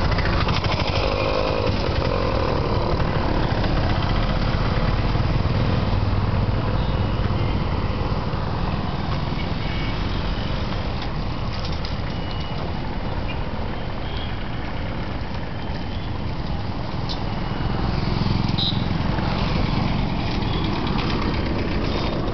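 Street traffic noise: engines of auto-rickshaws, motorcycles and cars running and passing close by, a steady, rumbling din.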